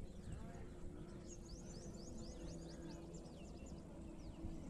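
Faint outdoor ambience: quick series of short, high chirps from small birds over a low steady hum.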